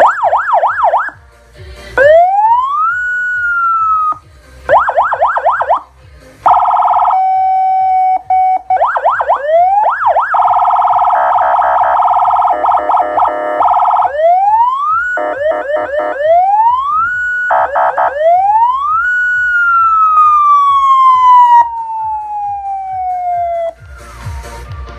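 Electronic emergency-vehicle siren run through its tones in turn: bursts of fast yelping sweeps, single slow rising wails, a steady held tone, and a fast choppy pulsing tone. It ends on one long rise followed by a slow falling wail that stops about a second before the end.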